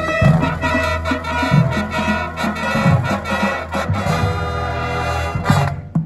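High school marching band brass, trumpets with sousaphones below, playing a loud held chord with drum hits under it. It cuts off sharply near the end, leaving short percussion strikes.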